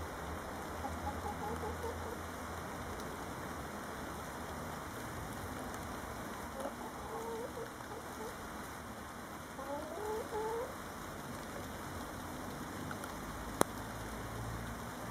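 A hen clucking softly in a few short groups, just after laying an egg. A single sharp click near the end.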